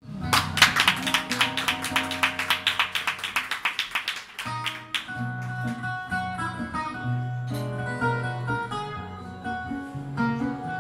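Acoustic guitar playing the introduction to a fado. It starts with fast, even strumming for about four seconds, then moves to picked melody notes over a plucked bass line.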